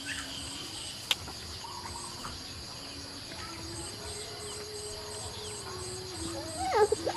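Insects chirping steadily: a constant shrill note with a pulsing chirp about three times a second over it. A sharp click about a second in, and a few short calls near the end.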